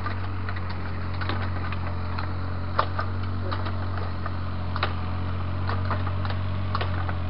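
Takeuchi mini excavator's diesel engine running steadily with a low hum, with scattered sharp clicks and knocks as the bucket works the loose soil and stones.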